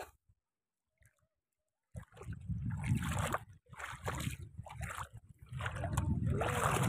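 Feet wading through shallow water on a tidal reef flat, sloshing and splashing in uneven steps, starting about two seconds in.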